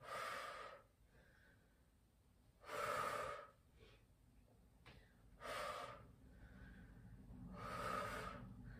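A woman breathing hard while exercising: four sharp breaths about every two and a half seconds, one with each alternating twist of the criss-cross, the breathing of effort.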